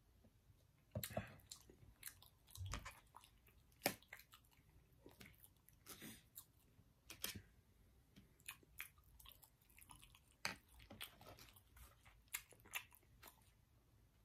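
Faint chewing of food, with many small irregular mouth clicks and smacks, a few of them sharper.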